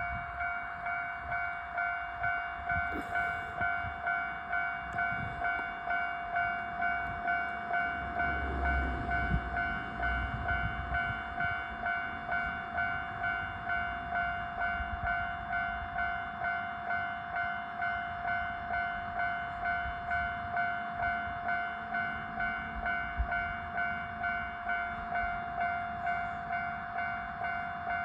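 Japanese level-crossing alarm bell ringing: a steady pitched clang with bright overtones, repeating evenly a little under twice a second. A low rumble swells about eight to eleven seconds in.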